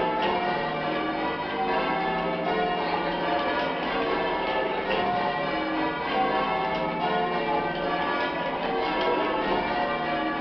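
Church tower bells being rung in changes, hand-pulled on ropes by a band of ringers: a continuous, even run of overlapping bell strokes.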